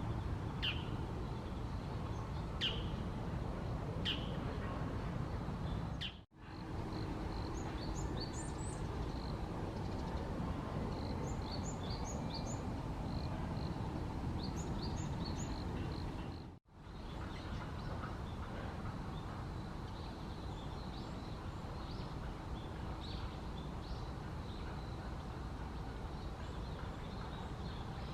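Wild birds calling over steady low background noise. There are three short, sharp calls in the first few seconds, then quick runs of repeated high chirps, then scattered single calls. The sound drops out briefly twice where the recording is cut.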